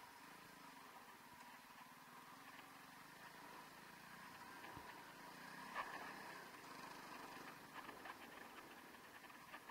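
Near silence: a faint steady hum with a few light ticks, one a little louder about six seconds in.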